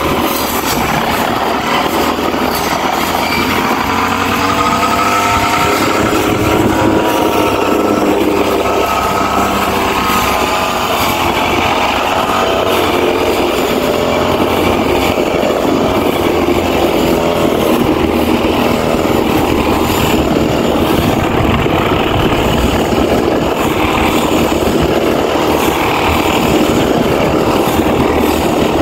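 Brush cutter's small petrol engine running at high speed while cutting grass, its pitch wavering up and down as the blade meets the grass.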